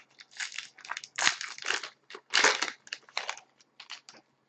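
Wrapper of a 2011-12 Panini Contenders hockey card pack crinkling by hand as the pack is opened: a run of short, irregular rustles that stop about four seconds in.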